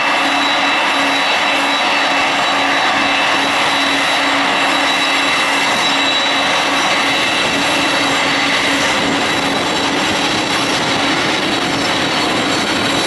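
Jet airliner engines running steadily: an even, loud rush of noise with a steady high whine and a low hum that do not change in pitch.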